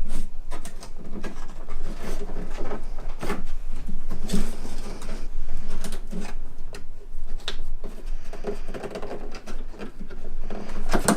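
Cardboard box and packing being pulled and handled: irregular scrapes, rustles and knocks as tightly packed cardboard inserts are worked loose from a large toy box.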